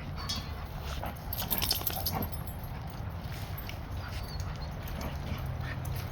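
A group of dogs playing, with scattered short whimpers and yips over the scuffling of their play; the busiest, loudest stretch comes about one and a half to two seconds in.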